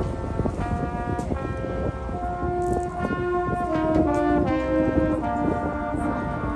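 High school marching band playing: the brass section holds and changes sustained chords over steady drumline and percussion strokes.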